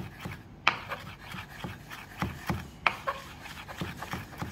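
Chef's knife chopping fresh mint and coriander leaves on a wooden cutting board: a run of sharp knife strikes on the board, about two to three a second.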